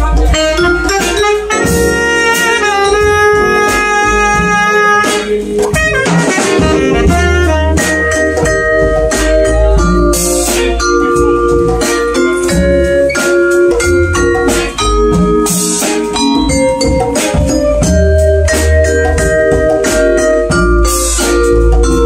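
Jazz combo playing live. A vibraphone close by is struck with mallets, its notes ringing out over bass and a drum kit with cymbals.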